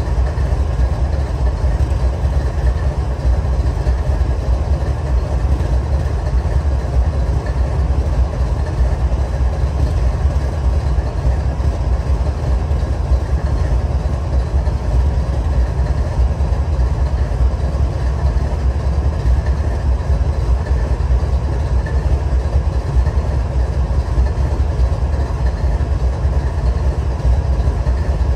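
Freight train rolling past, a steady low rumble that holds even throughout.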